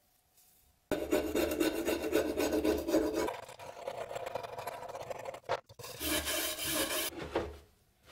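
A metal scraper grinding flaky rust off a rusty machete blade: a rough scraping in two stretches, broken by a short pause about two-thirds of the way through.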